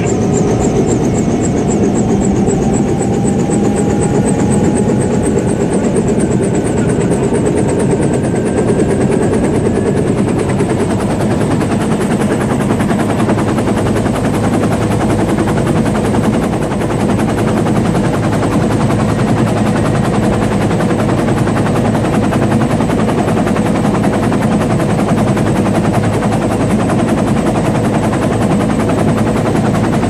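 Helicopter running on the ground with its rotor turning: a fast, steady rotor chop over the turbine's noise, with a faint whine that rises slightly in the first ten seconds.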